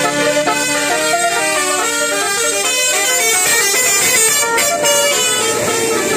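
A multi-tone musical vehicle horn playing a tune, its notes stepping from pitch to pitch every fraction of a second without a break.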